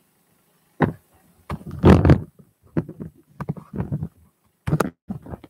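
A man's voice close to a webcam microphone, in short irregular phrases with brief pauses, loudest about two seconds in.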